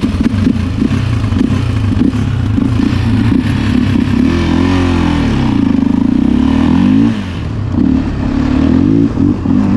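ATV engine running and revving as the quad pulls away and rides a dirt trail, its pitch rising and falling with the throttle.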